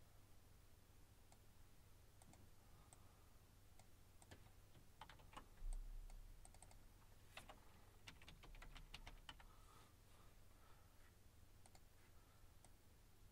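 Faint typing on a computer keyboard: scattered keystrokes and clicks, coming as a quick run in the middle, over a low steady hum.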